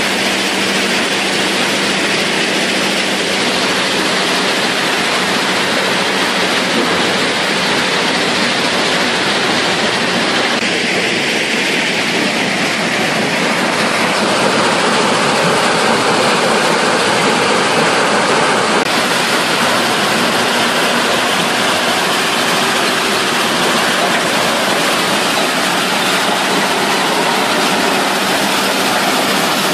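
A jaw-crusher rock-crushing production line running: a steady, loud mechanical noise with a faint low hum beneath it, its character shifting slightly a few times.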